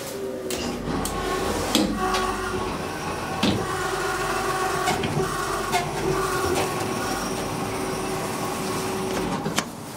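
Deve Schindler hydraulic elevator travelling: a steady mechanical hum from the hydraulic drive with scattered clicks and rattles from the car. The hum stops shortly before the end as the car comes to rest.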